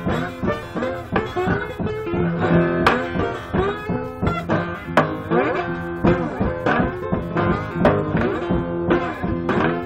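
Acoustic guitar played bottleneck-slide blues, fingerpicked notes that glide up and down in pitch between plucks.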